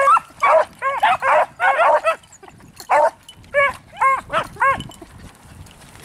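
Beagles barking in quick bunches of short, high, ringing yelps with a brief pause in the middle, hounds giving voice as they work a scent.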